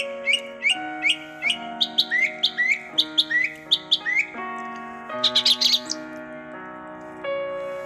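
A bird chirping over and over, about two or three short rising chirps a second, then a quick flurry of higher chirps around five seconds in. Underneath, slow keyboard music plays held chords that change every second or so.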